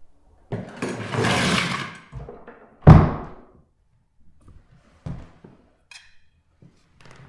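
A loud noisy rush lasting about a second and a half, then one heavy thud, the loudest sound here. About six seconds in, a faint clink of a metal spoon against a metal pan.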